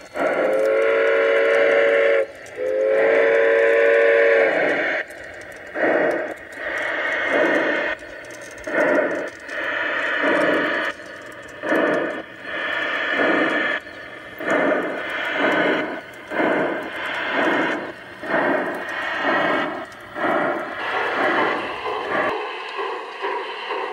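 Sound system of a large-scale model steam locomotive: two long blasts of a chime steam whistle, then steady chuffing at about one puff a second.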